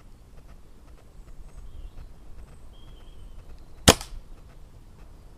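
A single shot from a Weihrauch HW97K spring-piston air rifle about four seconds in: one sharp crack with a brief ring after it.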